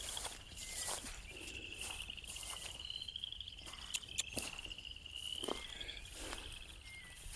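A steady high-pitched trill of a calling insect or frog, finely pulsed, with scattered soft clicks and rustles of footsteps.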